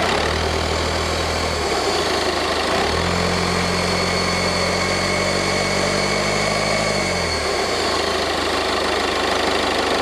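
Citroën DS3's 1.6 e-HDi four-cylinder diesel engine running, revved twice: briefly about a second in, then held for about four seconds, with a high whine rising and falling in pitch with each rev. The turbocharger is suspected of leaking oil and sounding a bit funny, typical of failing turbo seals.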